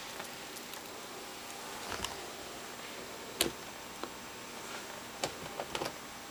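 Cats scrambling after a laser dot on carpet: scattered light taps and clicks, the sharpest about three and a half seconds in and a quick cluster near the end, over quiet room tone.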